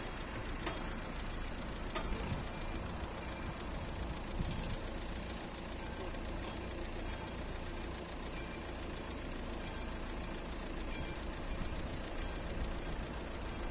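Railroad level-crossing warning bell of the classic type ringing steadily while the crossing is active, over the low idle of a city bus waiting at the barrier.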